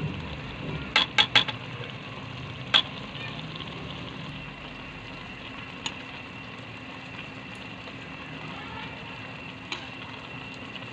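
A metal utensil clinking against a cooking pan: three quick clinks about a second in, another shortly after, and a couple of lighter ones later, over a steady hum.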